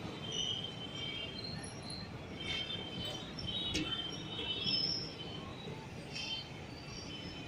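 Train rolling slowly on the rails, with a low rumble and short high wheel squeals that come and go.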